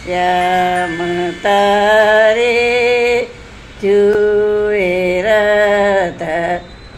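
An elderly woman singing a slow Gujarati song in long held, slightly wavering notes, with breaks between phrases about three seconds in and near the end.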